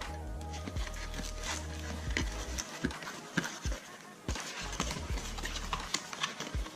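Packaging handled by hand: a string of small clicks, taps and rustles as a wristwatch is worked free of its box and plastic holder, with quiet background music underneath.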